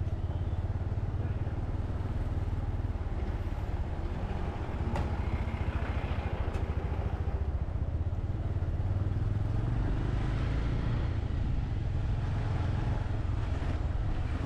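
Motorcycle engine running steadily under way, a continuous low drone with a rapid pulse.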